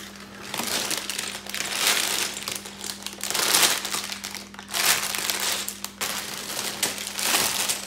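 Clear plastic bags of LEGO pieces crinkling and rustling as they are lifted out of the box and set down, in a string of bursts.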